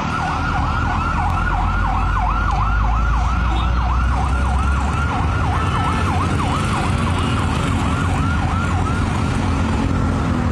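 Emergency vehicle siren sounding a rapid yelp, its pitch sweeping up and down about three times a second, over the low rumble of street traffic.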